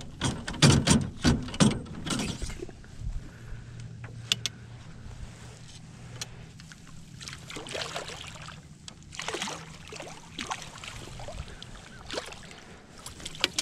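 Clatter and knocks of a landing net and fishing gear being handled in a small boat, mostly in the first two seconds, followed by rustling and gusts of wind noise on an action camera's microphone.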